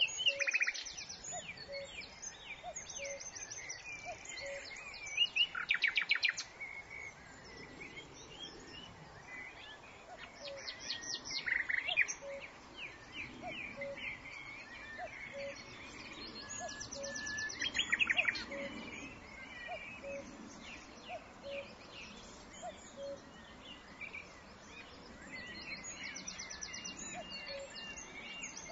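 Wild birds chirping and calling, with a loud, fast rattling trill about every six seconds and a soft low note repeating about once a second beneath them.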